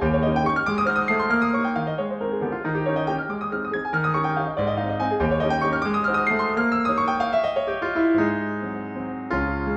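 Background piano music: a steady run of notes over a repeating bass line.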